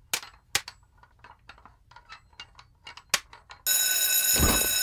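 A few faint scattered clicks and taps, then about three and a half seconds in a bank's electric alarm bell starts ringing, steady and loud.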